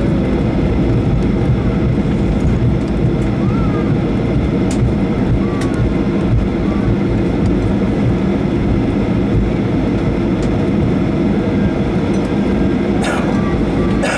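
Inside the cabin of a Boeing 737-800 rolling out after landing: the CFM56-7B engines run at low power under a steady loud rumble of airframe and wheel noise. A short crackle comes near the end.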